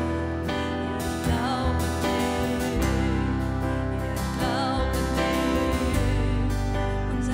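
A live worship song: two women singing in German over strummed acoustic guitar and keyboard. Deep bass notes come in about three seconds in.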